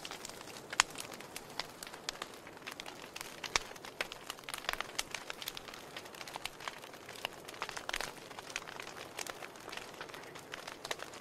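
Burning wood logs crackling: irregular sharp pops and snaps over a faint steady hiss, with one sharper pop about a second in.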